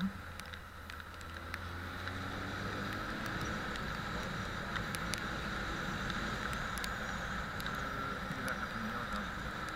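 Motorcycle riding along, its engine running steadily under constant road and wind noise.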